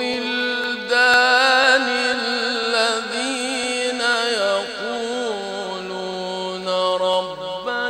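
Quran reciter chanting in tajweed style, holding one long melodic vowel whose pitch slides and wavers in ornaments. The voice breaks off briefly near the end and starts again.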